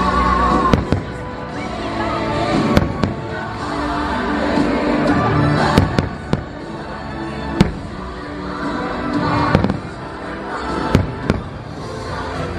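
Fireworks shells bursting overhead, about ten sharp bangs at irregular intervals, some in quick pairs, over show music playing through loudspeakers.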